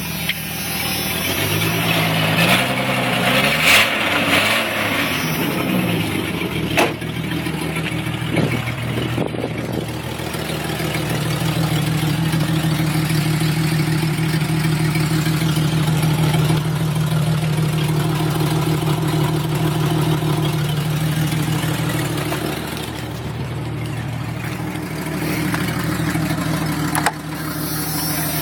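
1996 Jeep Cherokee's 4.0 inline-six running with an exhaust leak at the broken Y-pipe. It is revved up and down a few times in the first seconds, then held at a steady higher speed and eased back down near the end, with a couple of sharp knocks along the way.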